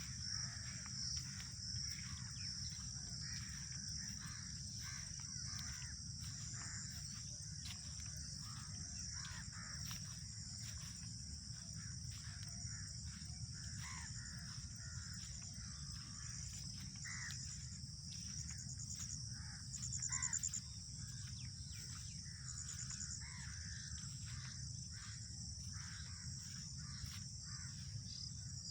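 Park ambience: birds calling here and there over a steady high chorus of chirping insects, with a low background rumble. There is one louder burst about twenty seconds in.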